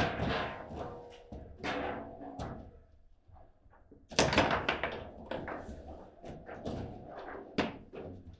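Table football being played: irregular knocks and clacks of the ball struck by the rod players and hitting the table walls, with hard shots at the start, about four seconds in and near the end.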